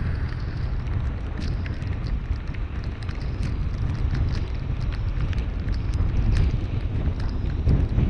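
Car driving on a snowy road: a steady low rumble of road and engine noise, with many short, sharp ticks scattered irregularly over it.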